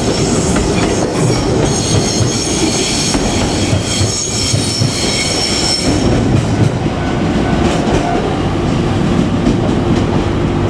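Train passing close by, its wheels running loud and steady over the rails, with a high-pitched squeal of wheel flanges on a curve that stops about six seconds in.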